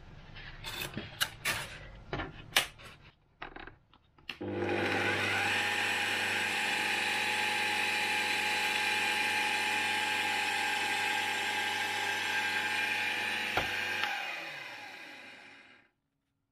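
A benchtop drill press: a few clicks and knocks, then about four seconds in its motor starts and runs steadily with an even whine while it bores into a Depron foam part. Near the end it is switched off and spins down, falling in pitch as it fades.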